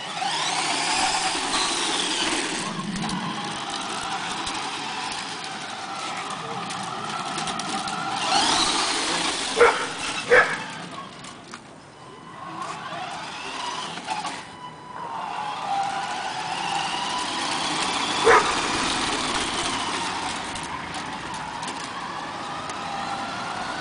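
Electric motor and gearbox of a Tamiya Knight Hauler RC truck whining, the pitch rising and falling as it speeds up and slows down, quieter for a few seconds around the middle. A few sharp clicks stand out, two close together about ten seconds in and one more near 18 seconds.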